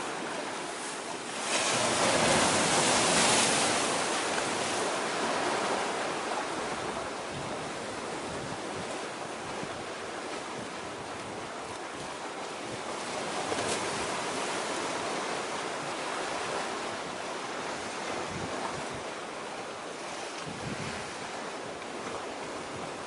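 Sea surf washing steadily, with a louder rush of waves about a second and a half in that slowly falls back.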